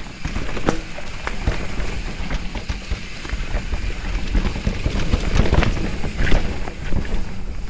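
Mountain bike riding down a dirt singletrack, heard from a helmet-mounted camera: wind rushing over the microphone and tyres rumbling on the dirt, with frequent clicks and knocks as the bike rattles over bumps.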